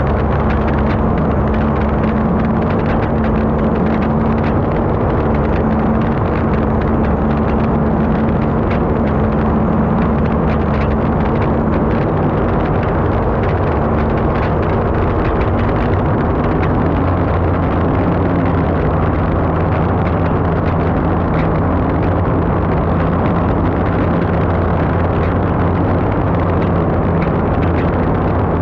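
Onboard sound of an unlimited hydroplane at racing speed: its turbine engine running steadily under full load with a constant low drone, under a rush of wind and water and many brief knocks.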